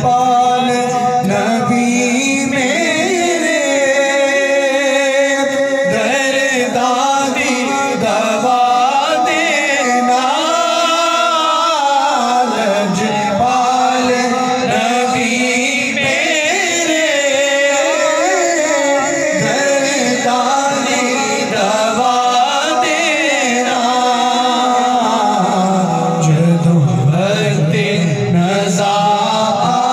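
A man singing a naat, a devotional kalam, solo into a microphone with no instruments, drawing out long ornamented notes that waver and bend.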